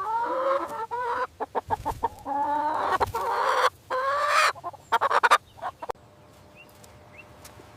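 Chicken calling: a few drawn-out calls broken up by short quick ones, stopping about six seconds in.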